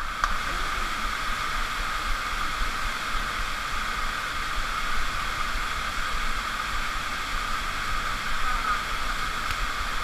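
Steady rush of an underground waterfall pouring into a deep cave pool.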